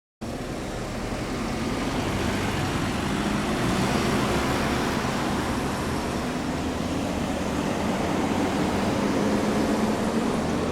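Motor vehicle engine and road traffic noise, a steady rushing sound with a low engine hum, growing slightly louder. It starts abruptly just after the beginning.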